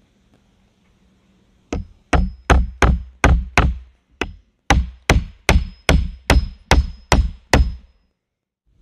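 A hammer driving a nail into a wooden board: about fifteen sharp blows with a short pause after the first six, each with a light metallic ring.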